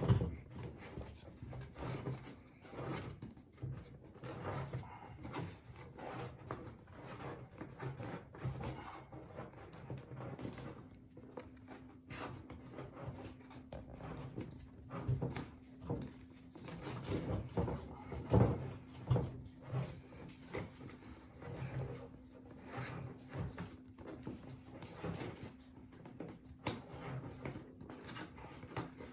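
Irregular rubbing, scraping and small knocks as the floor-heating mat's metal-mesh-reinforced power lead is pushed and twisted up a pipe inside the wall. A faint steady hum comes in about a third of the way through.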